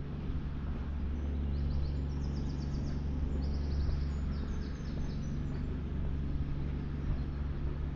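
Steady low rumble of distant city traffic, with a small songbird singing two quick phrases of rapid falling notes from about a second and a half in.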